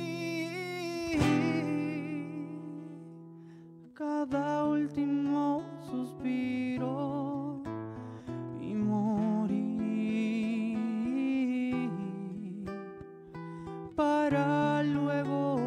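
Acoustic guitar played as an instrumental passage, plucked and strummed notes ringing out and fading, with a strong new chord about four seconds in and again near the end.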